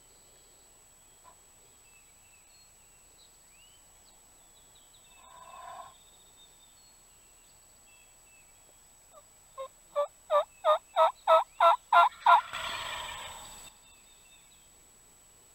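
A run of about ten hen-turkey yelps, evenly spaced about three a second and growing louder, with a wild turkey gobbler's gobble, a rattling burst about a second long, cutting in right on the last yelp. A fainter gobble comes about five seconds in, with faint songbird chirps behind.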